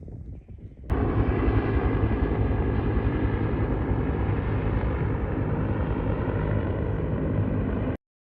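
A kayak's battery-powered motor running flat out while under way, with wind and water rushing past the camera: a loud, steady rumble that starts abruptly about a second in and stops dead near the end.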